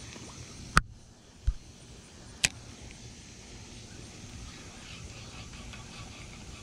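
Spinning rod and reel being handled: two sharp clicks about a second and a half apart, with a dull knock between them. Then faint light ticking, over steady outdoor background noise.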